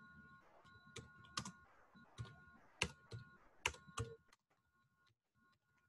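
Faint computer keyboard keystrokes: about seven irregular clicks over the first four seconds, then a few fainter taps.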